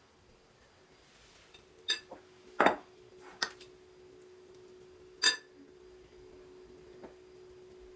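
A metal spoon clinking against a glass bowl four times, sharp separate clinks about two, three, three and a half and five seconds in, as filling is scooped out of the bowl and the spoon is set back in it. A faint steady hum-like tone sounds underneath.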